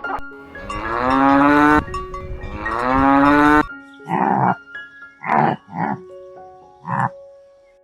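Cow mooing: two long calls, each rising in pitch, followed by several shorter, rougher calls. Soft background music runs underneath.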